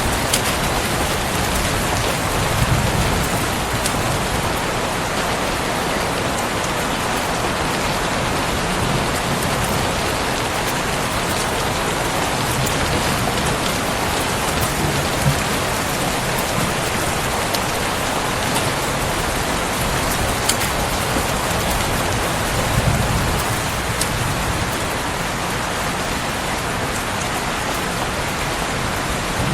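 Steady heavy rain falling, an even hiss with scattered sharp ticks of drops. A few soft low rumbles swell and fade under it.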